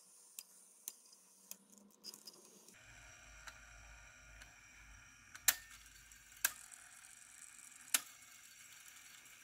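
Sharp mechanical clicks from a Sony WM-F15 Walkman's cassette transport as its buttons and levers are worked, three of them loud near the end. A faint steady motor whir starts about three seconds in.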